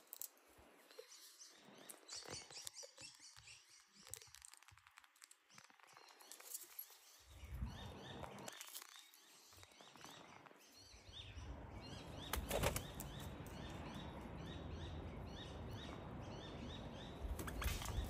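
Birds chirping around a backyard seed feeder, with scattered clicks and a flutter of wings. A low rumble comes in about eleven seconds in, under a run of quick short chirps.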